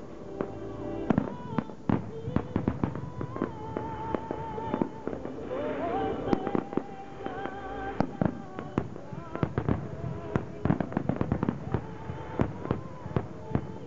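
Aerial fireworks display: an irregular run of shell bursts, bangs and crackles, several a second at times.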